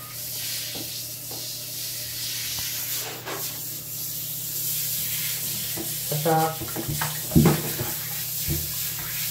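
Water running steadily from a handheld shower hose, a continuous hiss. A short pitched sound comes about six seconds in, and a louder thump about seven and a half seconds in.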